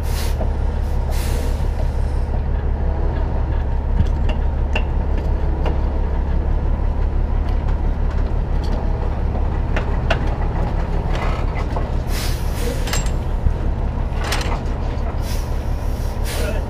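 A heavy-duty rotator wrecker's diesel engine idling with a steady low drone. Several short bursts of hissing air come near the end.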